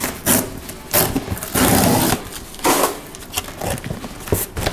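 Packing tape being pulled off a cardboard box in several rasping pulls, the longest about two seconds in, with cardboard rubbing and scraping under the hands.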